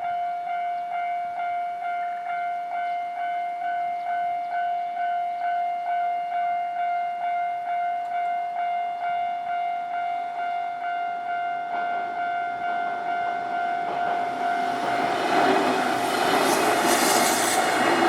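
Japanese railway level-crossing warning signal ringing in even, repeated strokes, about one and a half a second. From about twelve seconds in, the running noise of a Nankai electric train grows as it approaches and passes through the crossing, loudest near the end.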